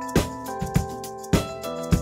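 Background music: held keyboard chords over a steady drum beat, with a kick drum about every half second.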